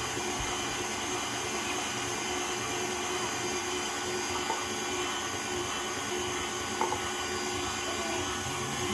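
Electric kitchen mixer's motor running steadily at medium speed, churning a cream cheese and gelatin filling as it thickens.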